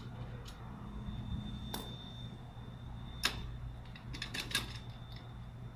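Scattered light clicks and taps of trampoline frame parts being handled as a leg tube is fitted and its bolt set by hand. The sharpest click comes about three seconds in, with a quick cluster of clicks soon after, over a steady low hum.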